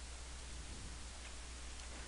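Steady hiss and low hum of the recording setup, with two faint computer-key clicks in the second half.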